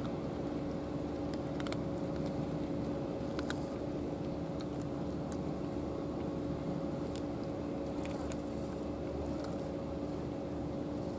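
Cats crunching dry kibble, heard as scattered small clicks over a steady low hum.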